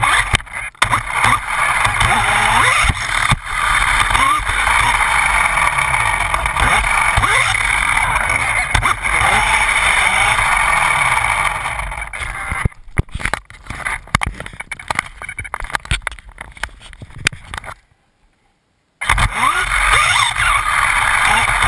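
Losi Mini 8ight 1/16-scale electric RC buggy being driven: the motor whines up and down in pitch with the throttle, over steady tyre and drivetrain noise. About twelve seconds in it falls back to scattered clicks and knocks, then the sound cuts out for about a second before the whine returns.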